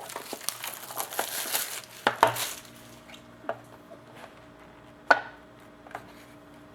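Crinkling of a hockey card pack wrapper being opened and handled, with sharp clicks about two seconds in, then a few scattered clicks and taps as cards are handled, the loudest about five seconds in.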